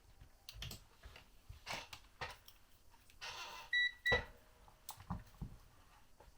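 Scattered handling clicks and a rustle of small parts, then two short high beeps a little under four seconds in: a multimeter's continuity beeper sounding as the switch's contacts are checked.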